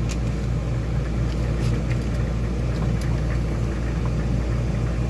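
A steady low mechanical hum with a few light clinks of silverware being handled.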